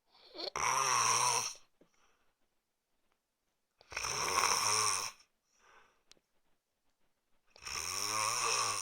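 A man snoring: three loud snores, each about a second and a half long, coming about every four seconds, with a soft breath between them.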